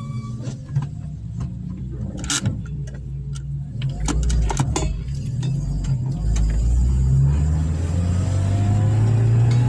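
Car engine and road noise heard from inside the cabin while driving, getting louder from about four seconds in, with the engine note rising as the car accelerates near the end. A few sharp clicks come through about two seconds in and again around four to five seconds.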